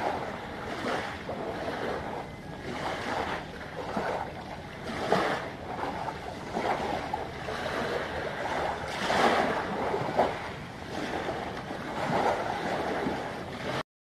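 Small waves washing in irregular swells on the shore, with some wind on the microphone. The sound cuts off abruptly near the end.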